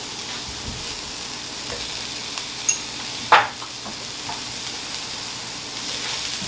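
Sliced shiitake mushrooms frying in oil in a nonstick skillet, a steady sizzle. About three seconds in there is a small clink and then one sharp knock as a pat of butter is dropped into the pan.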